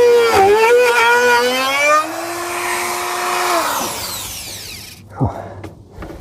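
Electric power tool motor running with a steady high whine that dips briefly under load about half a second in. It is switched off about two seconds in and winds down over the next two seconds, followed by a few light knocks and clicks.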